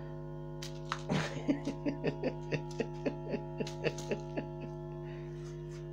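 Music with a steady held drone of tones and a run of short, sharp plucked notes, about three a second, that stops about two-thirds of the way through.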